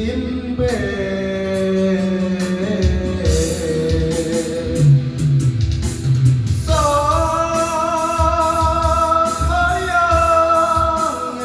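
Music: a break between sung lines in a Sundanese pop song. A long held, gently gliding melodic lead plays over bass and a steady low beat, and a new phrase enters about seven seconds in.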